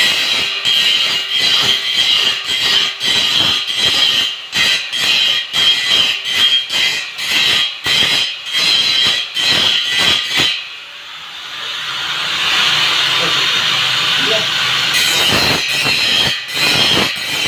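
Angle grinder grinding steel. For about ten seconds it bites in choppy, irregular strokes. It eases off briefly, then runs as a steady grind.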